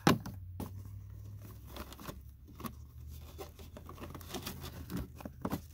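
A used pleated cabin air filter being gripped and worked out of its plastic housing under the cowl, with soft rustling, crinkling and small scrapes and clicks. A sharp knock comes right at the start, and a low steady hum runs underneath.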